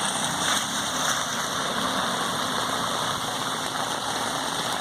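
Stormwater from a county drain pouring steadily out of its outlet after heavy rain, a constant rushing noise.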